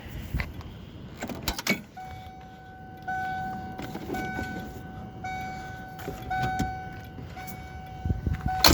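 A car's electronic warning tone sounding steadily, swelling in pulses about once a second, with a few sharp clicks and knocks at the start and a loud click just before the end.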